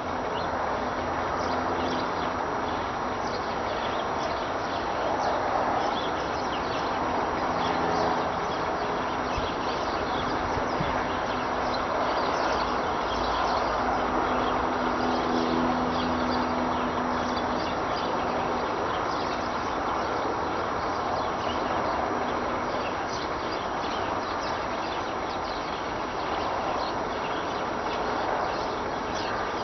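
A steady, wind-like rushing roar heard on a windless morning, of unknown origin; it has persisted for months. A faint low hum comes and goes within it.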